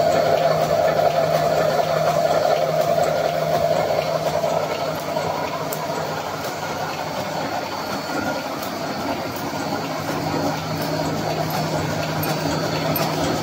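Welded wire mesh machine running, its row of electrodes spot-welding the wire mesh: a steady mechanical noise with a low hum and faint scattered ticks, a little quieter in the middle stretch.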